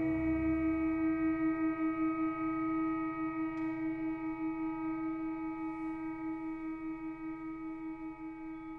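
Symphony orchestra holding a sustained chord of steady tones that slowly fades away, its strongest note pulsing quickly and evenly; the deepest notes drop out about a second and a half in.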